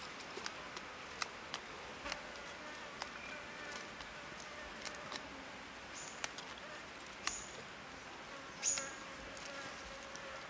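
An insect buzzing close by in a faint, wavering hum, over small sharp snaps and rustles of fresh herb leaves being plucked from their stems by hand. The loudest snap comes near the end.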